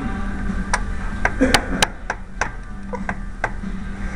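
Hand tool clicking against metal in short, uneven strokes, about three a second, while the No. 7 main bearing cap of a Cummins 855 engine is refitted.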